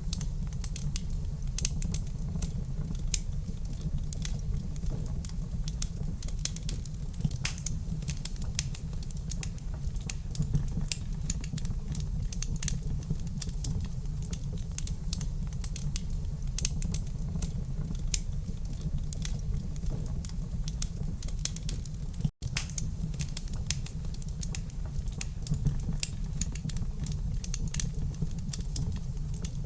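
Wood fire crackling in a fireplace: dense, irregular sharp pops and snaps over a steady low rumble, cutting out for an instant about two-thirds of the way through.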